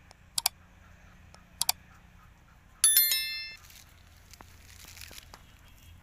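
A small metal bell rings once, a bright ding that dies away in under a second, about three seconds in; before it come two pairs of sharp clicks.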